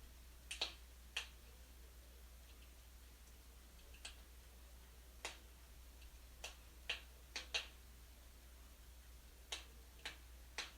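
Wood fire in a fireplace crackling faintly: sharp, single pops at irregular intervals, about a dozen in all.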